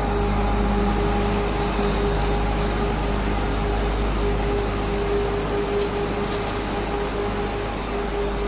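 Steady hum of a shot blasting plant's electric motors and fans running, with a low rumble and a constant drone.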